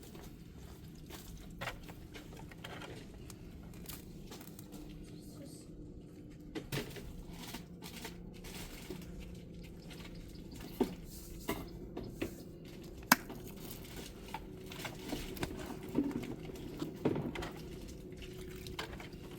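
Scattered clicks, taps and rustles of food being prepared by hand, over a low steady hum; one sharp click about 13 seconds in is the loudest.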